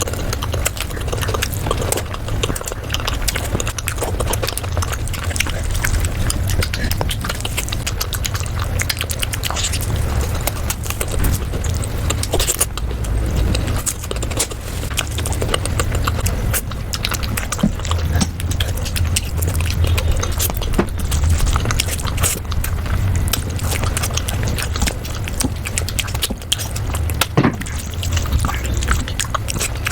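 Close-miked eating sounds of chicken curry, sped up to double speed: a rapid, continuous run of wet chewing and mouth smacks over a steady low hum.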